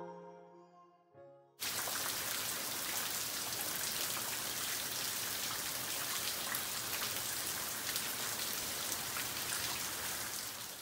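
Steady rain falling, a dense even hiss with individual drops ticking through it; it cuts in suddenly about a second and a half in and fades near the end. Before that, soft background music fades out.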